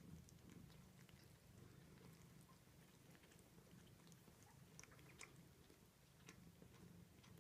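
Very faint sounds of a mother cat with her nursing kittens: a low purr that swells and fades, with scattered soft clicks from the kittens suckling and her licking them.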